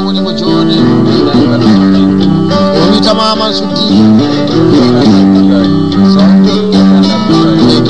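Guitar music: plucked strings picking out a melody over a bass line.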